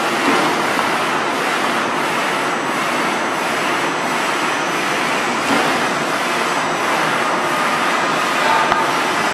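AMC-ZJK-120D paperboard edge protector production line running, a steady loud machinery noise.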